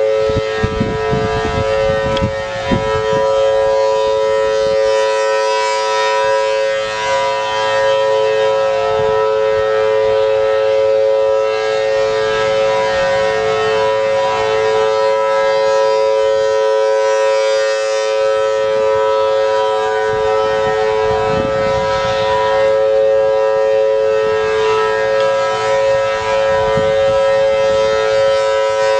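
Federal Signal Thunderbolt 1000T warning siren with a 4/5-port chopper sounding a steady alert tone: two pitches held together as one chord, with no rise or fall. Its horn rotates, and the loudness dips slightly now and then as it turns.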